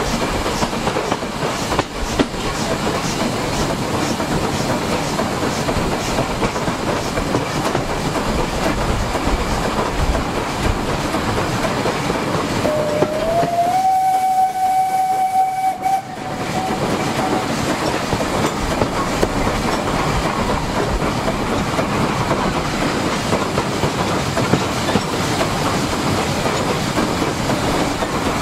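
Steady running noise and wheel clatter of a train behind a Bagnall saddle tank steam locomotive. About halfway through, the locomotive's steam whistle sounds once, sliding up in pitch and then held for about three seconds, as it passes a whistle board.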